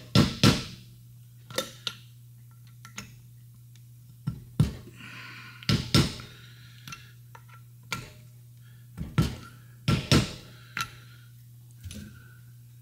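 Light hammer taps on a plastic seal installer, driving valve stem seals down onto the valve guides of a cylinder head. About a dozen sharp taps, singly and in quick pairs, with pauses between.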